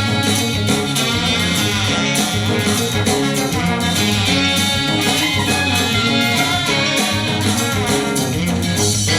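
Music with a steady beat played back loud through a 1998 Sony LBT-XB50 hi-fi system's speakers.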